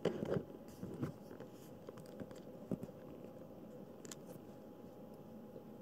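Soft rustling and scratching of a kitten squirming on a mesh pet bed and pawing at a fleece blanket, loudest at the very start and about a second in, with a few light clicks later, over a faint steady hum.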